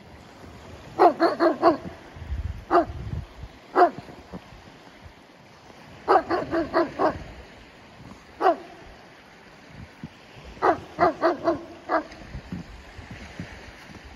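A dog barking in three bouts: each a quick run of four or five barks, followed by one or two single barks.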